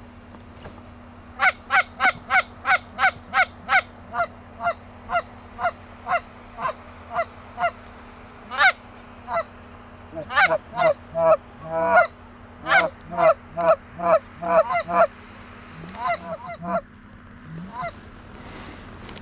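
Canada goose honks: a quick, even series of short two-note honks, then a denser, more irregular run of honks and clucks that thins out near the end.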